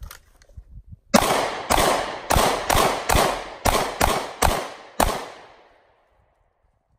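Nine pistol shots from a SIG Sauer P365, fired in quick succession starting about a second in and ending about five seconds in, roughly two shots a second, each echoing before the echo dies away near the end.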